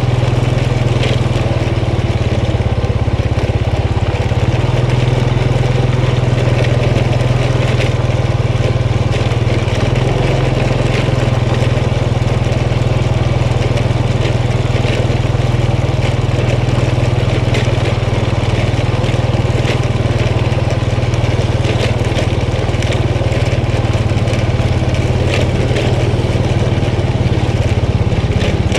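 Honda motor scooter's engine running steadily while being ridden at low speed, with the crunch of tyres on a rough dirt road and occasional short knocks from bumps.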